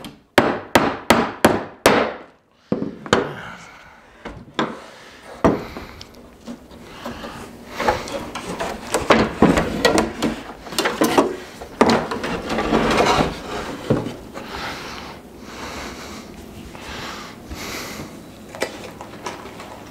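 A hammer drives a nail into a cedar fence-picket planter box with about six quick strikes, roughly three a second. This is the nailing-down of a bowed board that will not sit straight. After that come scattered knocks and scraping as the wooden box is shifted and turned over on the bench.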